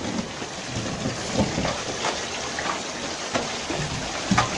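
Water splashing and sloshing as gloved hands work through a shallow shrimp holding pool, with a few sharper splashes over a steady rushing noise.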